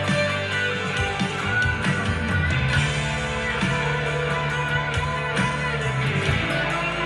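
Electric guitar, a Harley Benton SC-DLX, played through a Blackstar ID15 TVP amplifier in a rock style, in a full mix with held bass notes and a steady drum beat.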